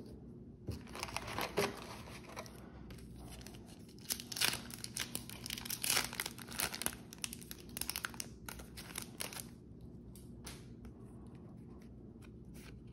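Foil Yu-Gi-Oh booster pack wrapper crinkling and tearing as it is ripped open by hand, loudest in the middle, followed by a few faint ticks as the cards inside are handled.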